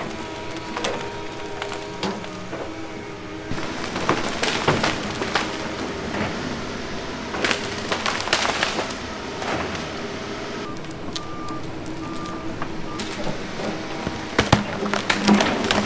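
Komatsu PC170LC excavator's diesel engine running under load while trees crack and splinter as the machine pushes and rips them down, with sharp snaps of breaking wood scattered throughout.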